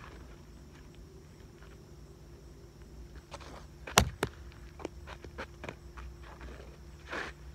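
A sharp knock about halfway through, a quieter one right after it, then a run of quick footsteps, about three a second, over a steady outdoor background.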